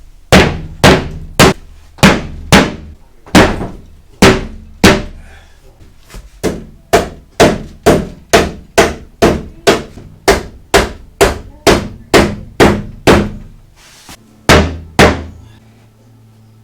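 Hammer driving nails into wood framing: about thirty sharp blows, first in short runs, then a steady run of about two a second, stopping near the end.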